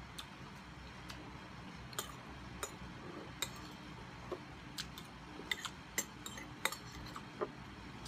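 Metal spoon clinking against a glass bowl while scooping out the last of the food: a dozen or so sharp, irregular clinks, coming more often in the second half.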